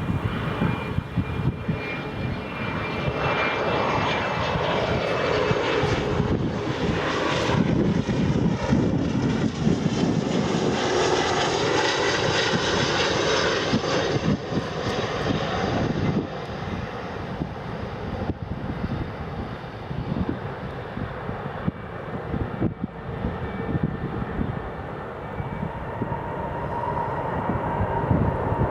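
Jet aircraft engines running as the aircraft moves along the runway, growing louder to a peak about halfway through with a whine that slides in pitch, then fading away.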